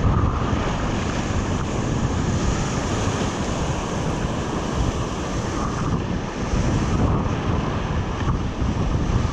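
Whitewater rapids rushing steadily around a tandem kayak running an artificial whitewater course, with wind buffeting the microphone.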